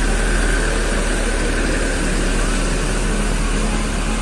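Diesel engine of a Mercedes-Benz coach running steadily at low revs as the coach pulls away.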